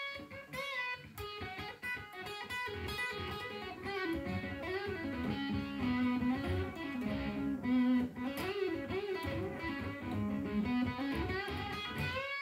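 Les Paul-style electric guitar playing a blues lead line in B: a run of single picked notes, many bent up and back down in pitch or shaken with vibrato.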